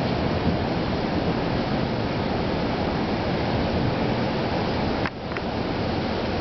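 Storm wind buffeting the microphone, a steady rushing noise heavy in the low end that drops suddenly about five seconds in, followed by a few faint clicks.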